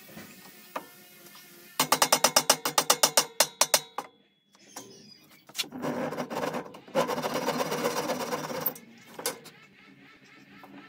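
A quick run of sharp wooden knocks, then a hand saw cutting through a wooden dowel in rapid strokes. Faint background music plays underneath.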